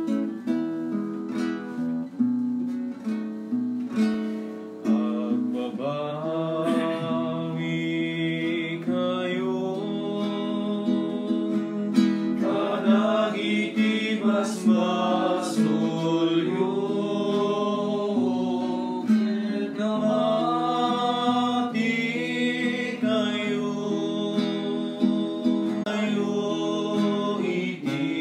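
Hymn played on acoustic guitar: a few seconds of guitar alone, then a voice singing with it from about six seconds in.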